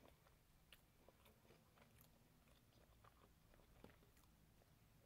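Faint chewing of fried chicken, with scattered soft clicks.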